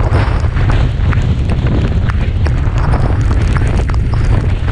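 Strong storm wind buffeting the microphone in a heavy, unbroken rumble, with frequent sharp ticks of raindrops striking the camera.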